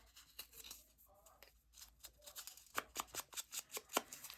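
Paper edges being inked with short scrubbing strokes: a run of soft, quick papery scratches that grow louder and closer together in the second half.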